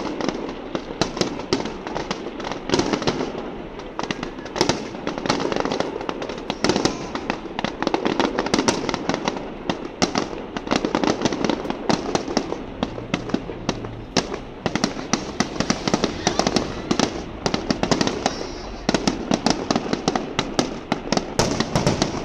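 Fireworks display going off in a dense barrage: many sharp pops and bangs in quick succession over a continuous crackle.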